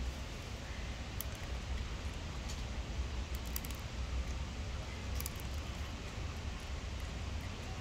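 A cat chewing dry kibble, a few faint crisp crunches scattered through, over a steady low background rumble.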